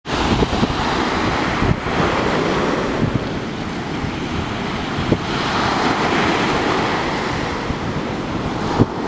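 Steady wind buffeting the microphone over the rush of surf, with a few brief thumps.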